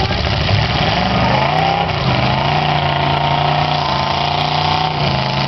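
Demolition derby car engine revving up, held at steady high revs for a couple of seconds, then dropping off near the end.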